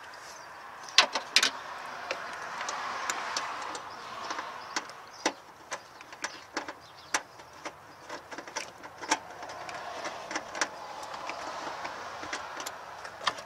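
Scattered sharp clicks and knocks of plastic wiring-harness connectors being handled and fitted at a 1992 Dodge Dakota's engine computer (PCM), the loudest about a second in, over a background rush that swells and fades twice.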